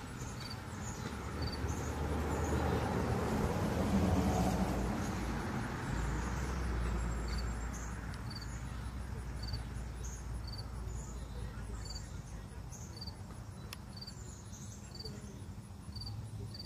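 An insect chirping steadily about once a second, with other short high chirps scattered between. A broad rushing noise swells over the first few seconds and then fades away.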